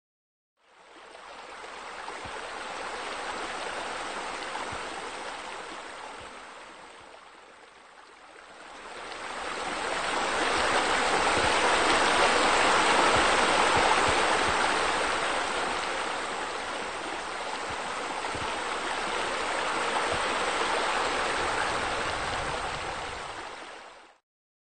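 Steady rush of running water, like a stream or fountain. It fades in, dips briefly, swells louder in the middle and cuts off abruptly near the end.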